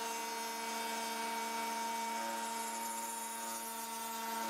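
Small Trend router running at full speed with a steady whine.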